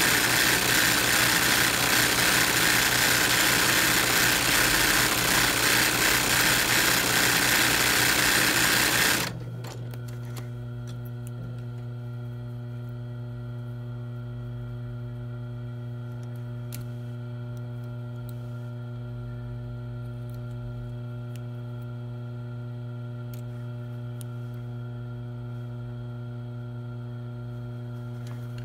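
Industrial sewing machine stitching fast in free-motion embroidery on cotton cloth held in a hoop. About nine seconds in, the stitching stops suddenly and only a steady motor hum remains.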